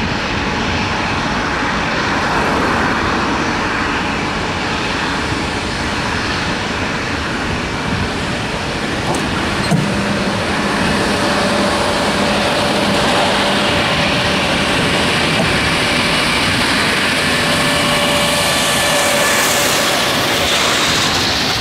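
Boeing 767-300ER's two jet engines at takeoff thrust, a steady loud noise as the airliner rolls down the runway and climbs away.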